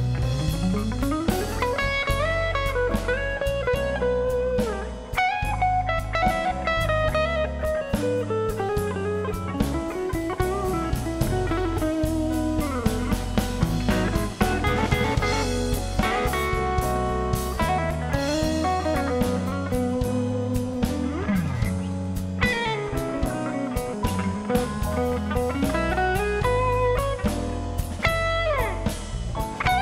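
A live blues band plays an instrumental passage: an electric guitar carries a lead solo full of string bends and slides over the drum kit.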